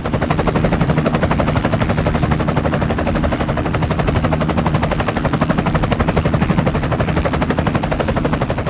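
Small engine of a DIY mini tractor running at a steady speed, with a rapid even chugging of many beats a second; it fades away near the end.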